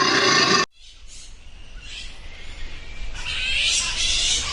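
Animal calls: a loud, high call that cuts off abruptly under a second in, then a noisy, hissing sound that grows louder over the rest.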